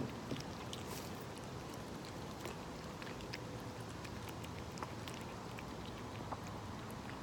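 Cats eating, faint scattered crunching clicks over a steady background hiss.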